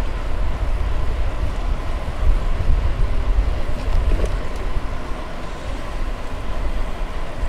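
Steady rush and low rumble of wind on the microphone of a moving bicycle, with no distinct events.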